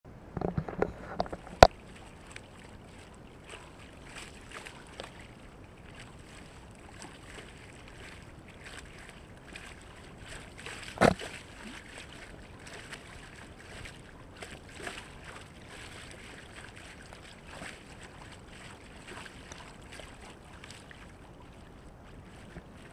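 Water rushing and splashing along the hull of a Trinka 12 sailing dinghy under way. A few sharp knocks in the first two seconds and a louder slap of water about eleven seconds in.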